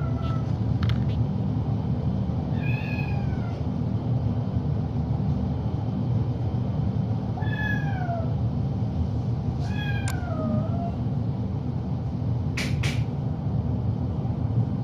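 A kitten meowing over and over, each meow sliding down in pitch, about every two to five seconds; it is frustrated at being unable to climb over a pen fence. A steady low hum runs beneath, and two sharp clicks come close together near the end.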